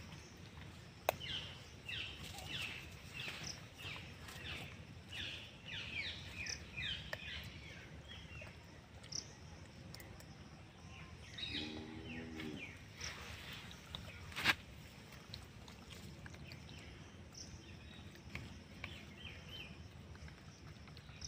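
Birds chirping in a quick series of short, high calls, several a second, for the first eight seconds or so, over a steady background hiss. A brief lower pitched call comes around twelve seconds, and there are two sharp clicks.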